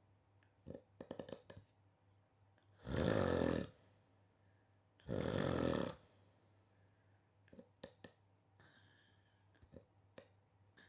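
A person snoring: two loud snores about two seconds apart, each lasting just under a second, with faint scattered clicks between them.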